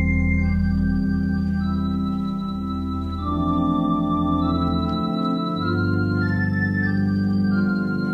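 Organ playing slow, held chords over low bass notes, the chords changing every second or two.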